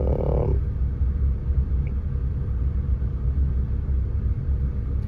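Saturn car engine idling in park with a steady low rumble. The engine has an ongoing misfire, which the scan tool shows piling up on cylinder 1 at idle.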